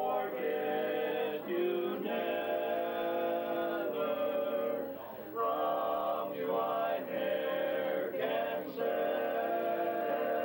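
Vocal quartet singing a cappella in close harmony, held chords in short phrases.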